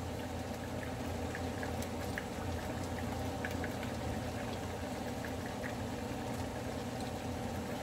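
Chicken simmering in its own juices in a pot: a steady bubbling hiss with scattered small pops, over a low steady hum.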